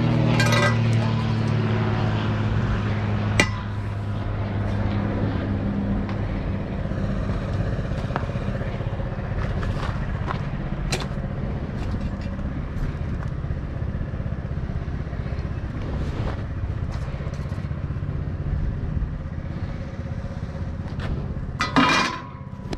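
Vehicle engine running, a steady low rumble, with a sharp click about three and a half seconds in.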